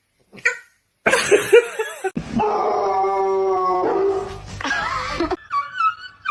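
A dog vocalising: short yips and whines with one long, steady held note of about two seconds in the middle, then higher chirping whines near the end.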